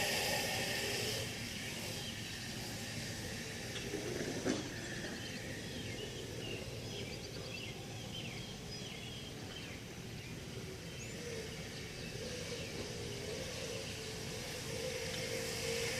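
Outdoor background noise with a bird singing a string of short repeated notes through the middle, and a single sharp click about four and a half seconds in.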